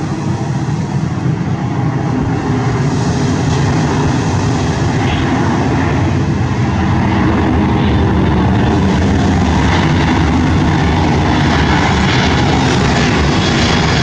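Jet engines of a Boeing 737 airliner on landing approach passing overhead, a steady rushing jet noise that grows louder over the first several seconds and then holds.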